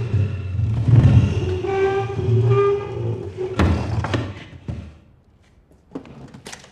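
Heavy wooden chair dragged across the floor, its legs screeching in a run of long pitched scrapes, then set down with a thud about three and a half seconds in; a few soft knocks follow near the end.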